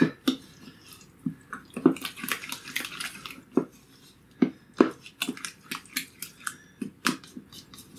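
A spoon stirring thick, creamy sour-cream-and-salsa sauce in a bowl: wet squelching with irregular clicks and taps of the spoon against the bowl.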